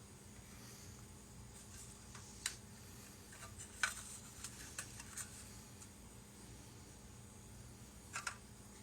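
Faint light clicks and taps, about five spread over several seconds, of small 3D-printed resin model parts being handled and set down on a tabletop, over a faint steady hum.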